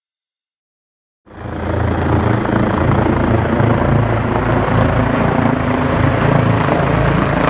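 Helicopter with a water bucket slung beneath it, rotor running steadily and loudly with a fast low beat. It cuts in suddenly about a second in, after silence.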